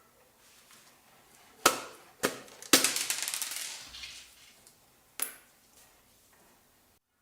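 Blender parts being handled during disassembly: two sharp knocks, then a clattering rattle lasting about a second, like small hard pieces dropping and settling, and one more knock a couple of seconds later.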